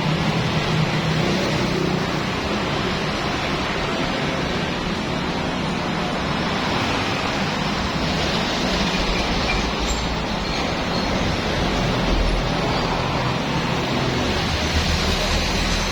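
Steady rushing spray of water from a washer, over a low motor hum.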